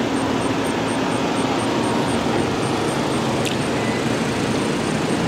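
Steady road traffic noise with a low engine hum underneath.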